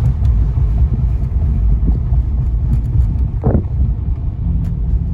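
Mercedes-AMG C43's twin-turbo V6 rumbling low through a mufflerless AWE Track Edition catback exhaust while driving in comfort mode. A steady low drone sets in near the end.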